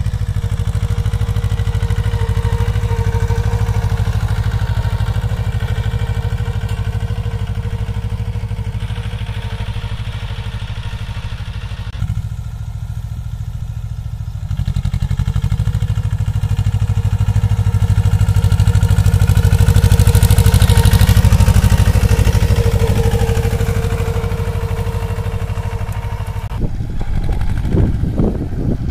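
Mahindra Jivo 245 compact tractor's two-cylinder diesel engine running steadily under load as it pulls a reversible plough, with a faint steady whine over the engine note. It gets louder for a few seconds past the middle, and near the end the sound turns uneven.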